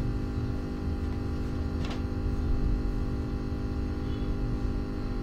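Steady electrical mains hum, a buzzing tone made of many even, unchanging pitches over a low rumble, with a faint short click about two seconds in.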